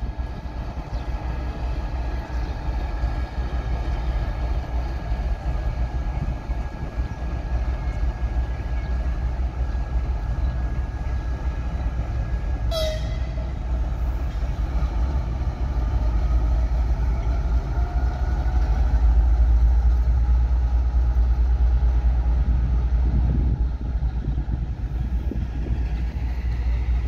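TEP70BS diesel passenger locomotive pulling away with its train: a steady, deep rumble from the 16-cylinder diesel working under load, with a faint whine that rises in pitch through the second half. The sound swells about two-thirds of the way through as the locomotive and coaches come past, and a brief sharp sound stands out about halfway through.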